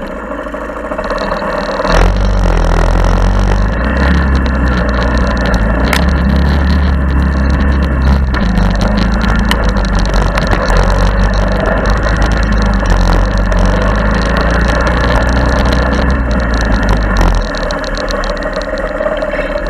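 Honda ATC70 three-wheeler's small four-stroke single-cylinder engine running while it is ridden. A heavy low rumble rises about two seconds in and eases off near the end.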